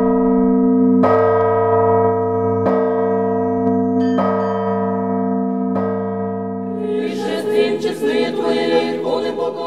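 A church bell tolling, struck four times about a second and a half apart, each stroke ringing on under the next. Near the end a busier, brighter sound joins in over the bell.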